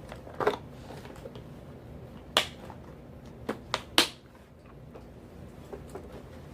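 Plastic tackle boxes being handled: about five sharp clicks and knocks, one about half a second in, a loud one near the middle, and a quick group of three a little later, the last the loudest, typical of plastic latches snapping and box lids knocking.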